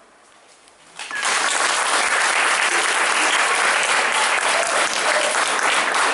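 Audience applauding, breaking out about a second in after a brief hush, then steady clapping.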